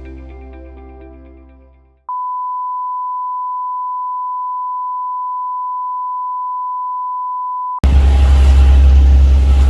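Background music fading out, then a steady, high pure beep tone held for about six seconds. Near the end the beep cuts off and a loud, low rumbling noise starts abruptly.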